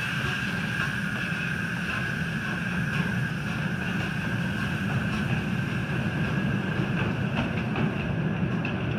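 Tinkerbell-class 7¼-inch gauge live steam locomotive pulling away with its passenger carriages: a steady hiss of steam over a low rumble of wheels on the track. Near the end, a run of clicks of the wheels going over rail joints.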